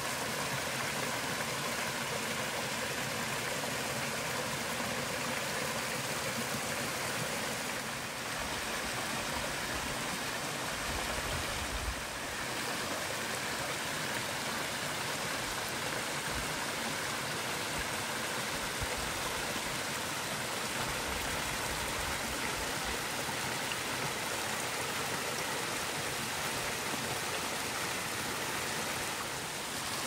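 Steady rush of flowing water from a mountain stream or waterfall, an even, unbroken noise.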